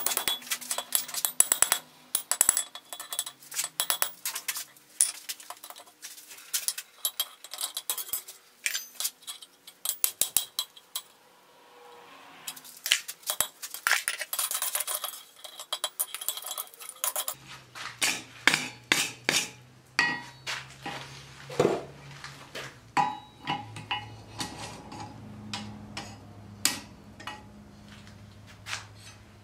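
Blacksmith's hammer striking a hot iron bar on an anvil: a long irregular run of ringing metal blows, some hard, some light. A low steady hum joins the strikes about two-thirds of the way through.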